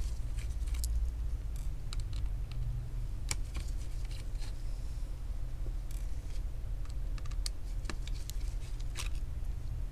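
Scattered light clicks and ticks of a small screwdriver and gloved fingers working the screws out of a laptop's display hinge, over a steady low hum.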